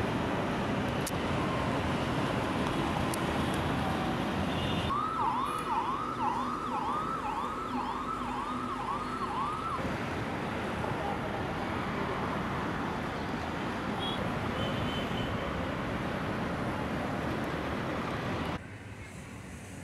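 Steady rushing rumble of a metro train running on the elevated track, then, about five seconds in, a siren sweeping up and down about twice a second for roughly five seconds over steady road traffic noise.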